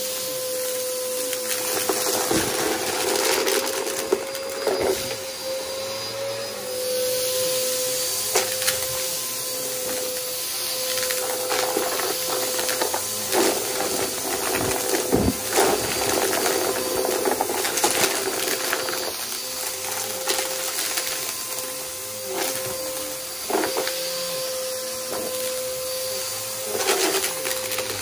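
Aeroswift vacuum cleaner running with a steady motor hum while it sucks up a crunchy debris mix, which gives irregular sharp crackles and clicks throughout.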